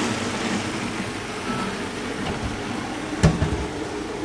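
Countertop blender running, whizzing oats and water into oat milk. A single thump about three seconds in.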